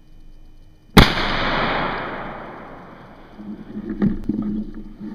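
A single shot from a 20-gauge slug shotgun about a second in, echoing through the woods and dying away over a couple of seconds. A few sharp knocks follow near the end.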